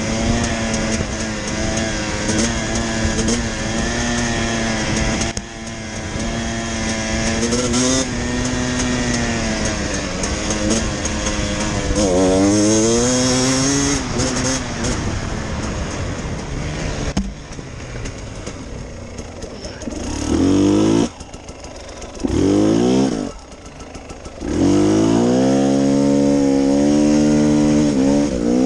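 Enduro dirt bike engine running under load on a trail, its pitch rising and falling with the throttle. About two-thirds of the way through, the throttle is shut and blipped three times in quick rising revs, then held open steadily near the end.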